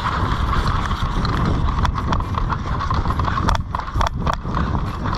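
Running footsteps pounding on the ground, with gear jostling on a body-worn action camera. From about two seconds in, a scatter of sharp clicks and cracks is heard.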